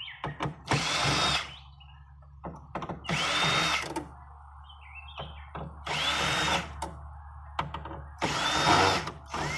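Cordless power drill/driver run in four short bursts about two and a half seconds apart, each spinning up to a high whine, backing out the screws holding a plate on a point-of-sale terminal. Small clicks and handling noises fall between the bursts.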